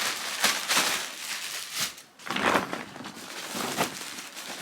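Plastic bag crinkling and rustling as it is handled, in several bursts.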